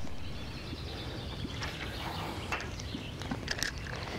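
Riverside ambience: small birds chirping over a steady low background, with a few short sharp clicks scattered through the middle and latter part.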